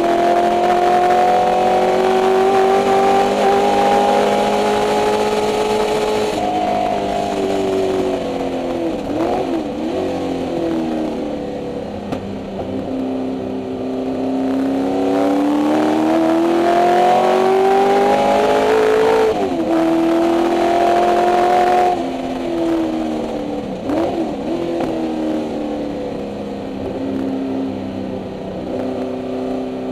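Ford 289 Windsor V8 of a 1964 Mustang race car heard from inside the cabin, running hard on track. The revs climb steadily under acceleration and drop sharply at gear changes, one clear shift about twenty seconds in, with the engine note falling back and wavering when the driver lifts.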